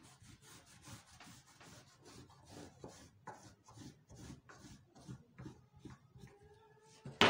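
Marker scratching along a long ruler on fabric, drawing a pattern line in short repeated strokes, a few a second.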